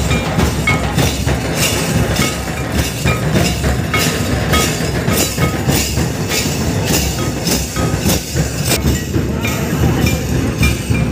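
Live folk dance music: drums beating a steady rhythm about two to three strokes a second, with short repeated high notes from a keyboard over a heavy low rumble.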